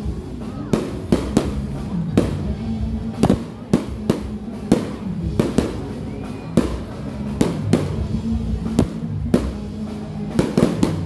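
Aerial fireworks shells bursting overhead in an irregular rapid series of bangs, about two a second, over background music.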